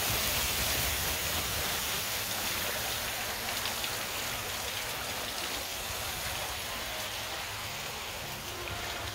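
Steady outdoor ambient noise: an even hiss with a low rumble underneath, easing slightly toward the end.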